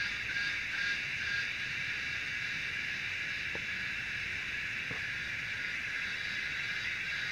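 A chorus of cicadas making a dense, high-pitched buzzing drone. It pulses in a quick rhythm for about the first second, then holds steady.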